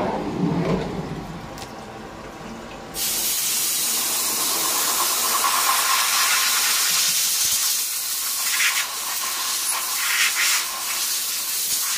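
Compressed-air blow gun hissing loudly as it blows chips and coolant off a freshly milled part on a CNC mill table. It starts abruptly about three seconds in, wavers as the nozzle moves, and cuts off sharply at the end. A brief low clatter comes just before it, near the start.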